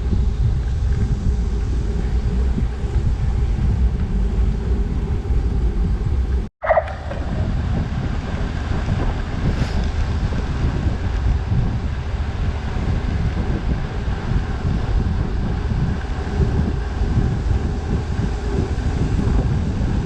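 Wind buffeting a GoPro action camera's microphone while cycling at speed: a loud, steady low rumble. It cuts out completely for an instant about six and a half seconds in.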